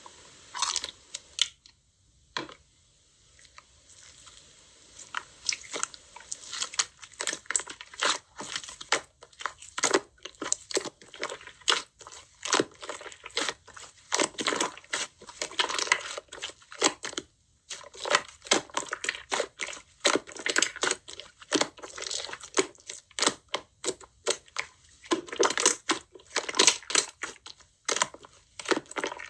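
Slime being squeezed and pressed by hand, a dense run of irregular crackling, crinkling pops, with a short pause about two seconds in.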